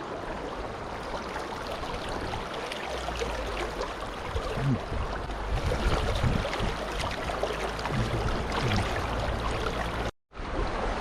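River water rushing and gurgling steadily. A low rumble joins about three seconds in, with a few soft low knocks. The sound cuts out briefly near the end.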